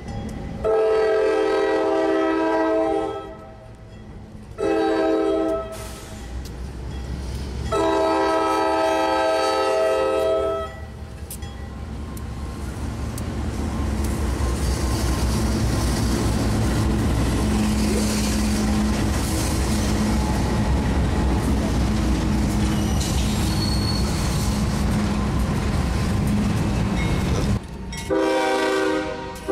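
Diesel locomotive horn of a CSX freight train sounding a multi-note chord in three blasts for a grade crossing: long, short, long. The lead diesel locomotives then pass close by with a steady low engine rumble and steel wheels on rail, followed by double-stacked container cars rolling past. Near the end, after a brief break, another horn blast begins.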